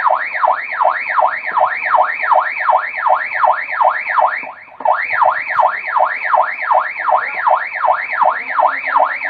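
A warbling electronic tone sweeping up and down in pitch about three times a second, like a siren yelp or an alarm, with a short break about halfway through.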